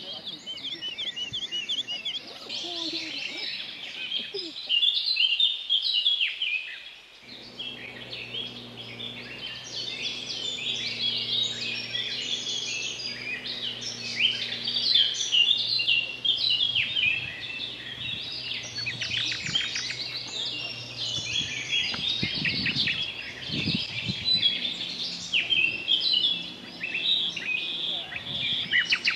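Many songbirds singing and calling at once: a dense chorus of overlapping chirps and fast trills. From about seven seconds in, a faint steady low hum runs beneath the birdsong for some fifteen seconds.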